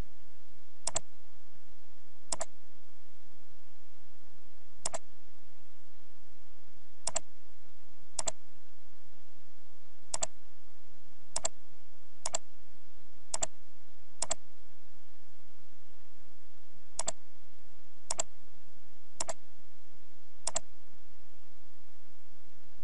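Computer mouse button clicking: single sharp clicks at uneven intervals of one to two seconds, about fourteen in all, with a longer pause midway.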